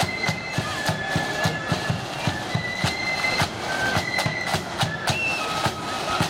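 Marching band playing a high melody over a steady beat of side drums and bass drum.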